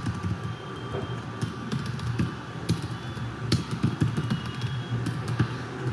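Typing on a computer keyboard: an irregular run of key clicks as code is entered, including Shift and Enter presses.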